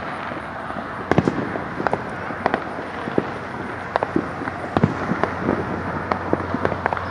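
Distant fireworks and firecrackers going off at irregular moments, sharp pops and bangs over a continuous background of far-off crackle and rumble, with the strongest bangs about a second in and near the five-second mark.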